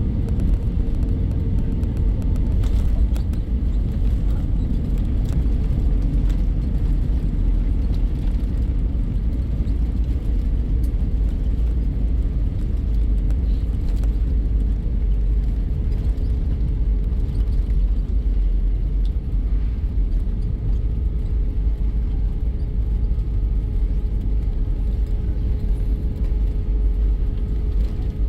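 Airbus A320-200 cabin noise: a steady low rumble of engines and airflow, with a faint steady hum running through it.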